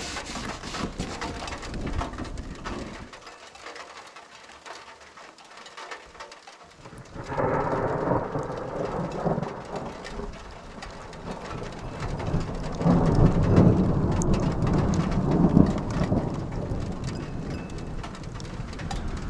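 Rain pattering on a truck camper shell, with thunder rumbling in from about seven seconds in and loudest a little past the middle.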